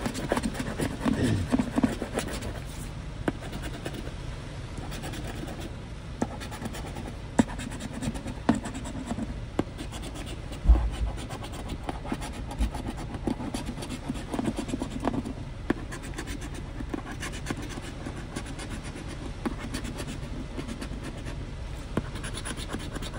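A coin scraping the coating off a paper scratch-off lottery ticket in repeated rasping strokes with short pauses. A dull thump about ten seconds in.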